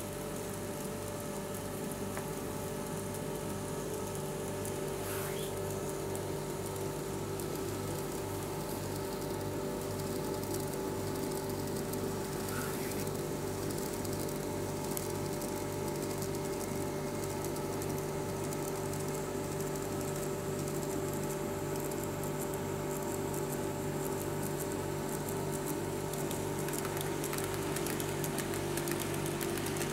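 KATO C50 N-gauge model steam locomotive and coaches running on the track: a steady motor hum with an even, fast rhythmic clicking of the wheels over the track.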